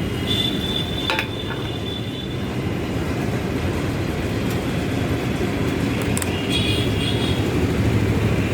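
Steady low mechanical hum of a petrol-station fuel dispenser and nearby engines while a motorcycle is being refuelled, with a high whine and a few clicks in the first second or so.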